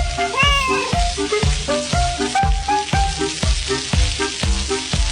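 Food sizzling and frying in a pan, a steady hiss over upbeat background music with a beat of about two kicks a second.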